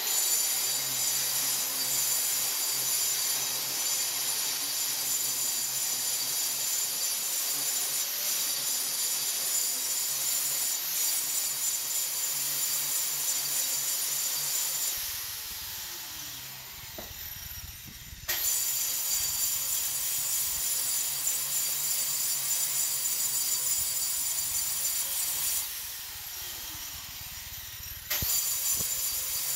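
Grinder with a diamond cup wheel grinding a concrete floor: a steady loud whine and grinding noise. Twice the tool is let off and winds down with a falling pitch, then starts up again sharply a few seconds later.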